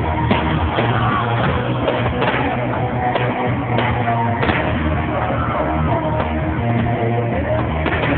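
Loud rock music with a steady low bass line and sharp short hits through it.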